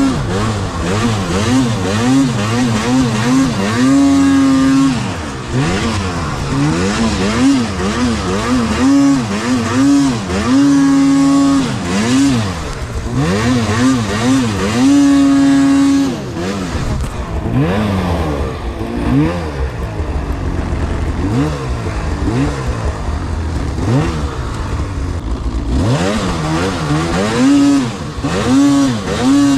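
Snowmobile engine revving up and down again and again as the throttle is worked, held at high revs for a second or two several times, around 4, 10 and 15 seconds in and near the end.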